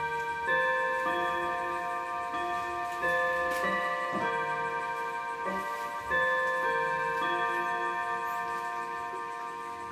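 Mauthe mantel clock's five chime rods playing a chime, set off by advancing the minute hand by hand. Each note starts in turn and rings on, overlapping the others and slowly fading.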